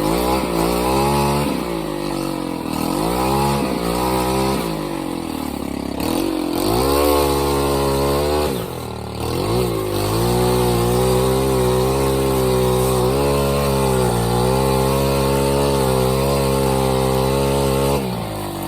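An engine revving up and down several times, its pitch rising and falling, then running at a steady speed through the second half.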